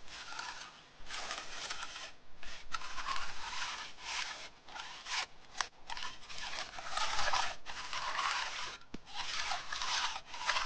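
Hand edging tool scraping along the edge of freshly poured wet concrete in repeated strokes of a second or two each, rounding off the slab's outside edge.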